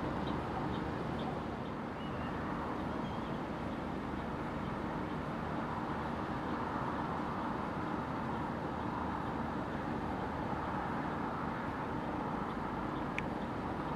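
Steady distant rumble of a freight train rolling past, with faint regular high ticks fading out in the first couple of seconds and a single sharp click near the end.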